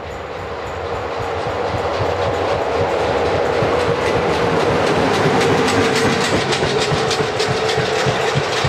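Romanian electric locomotives passing at speed, growing louder as they come close. Under the rumble there is a steady hum, and the wheels click regularly over the rail joints.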